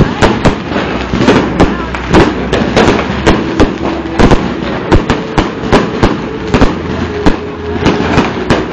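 Fireworks exploding in quick, irregular succession: sharp bangs and crackles, two or three a second, over a continuous rumble of more distant bursts.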